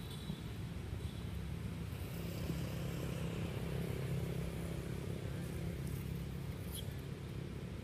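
Steady low hum of a motor vehicle engine running nearby, swelling a little in the middle, with one short high chirp near the end.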